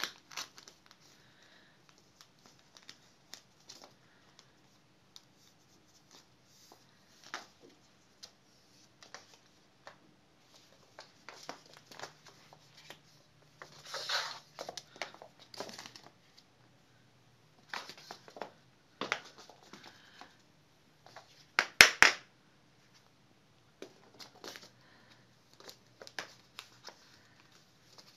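A kitten playing with a white tube on a shag rug and a wooden floor: scattered short rustles, scrapes and light knocks, with two louder bursts, one near the middle and one later on.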